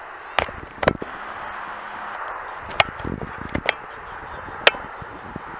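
A formation of Snowbirds CT-114 Tutor jets with a fighter jet, heard as a steady, distant jet hiss. Several sharp clicks and taps sound close to the microphone, and a brief high hiss comes about a second in.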